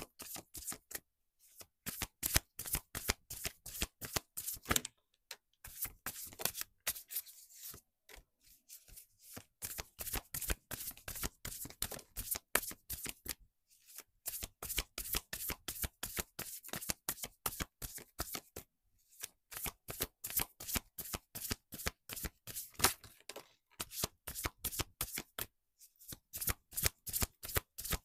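A deck of oracle cards being shuffled by hand: runs of rapid papery clicks as the cards slap and slide against each other, broken by several short pauses.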